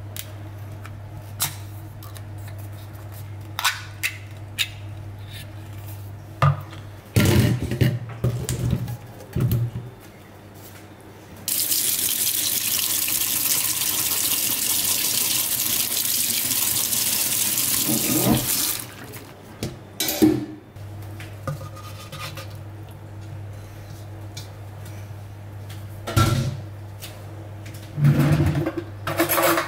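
Kitchen tap running onto jackfruit pieces in a stainless steel colander in the sink for about seven seconds midway, a steady splashing hiss. Before it, a ring-pull can is opened with a few clicks, followed by several loud clatters; near the end come a few knocks on a wooden chopping board. A low steady hum lies under the quieter parts.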